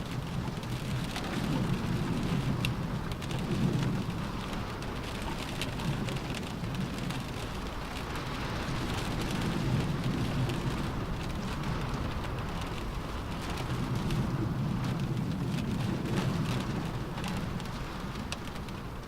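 Rain falling on a car roof: a steady patter with many small drop taps, under a low rumble that swells and fades every few seconds.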